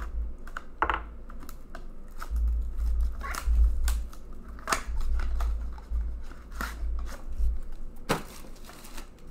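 Plastic wrapping crinkling and tearing as it is stripped off an Upper Deck Premier hockey card tin, with scattered handling clicks and bumps. There is a louder scrape about eight seconds in.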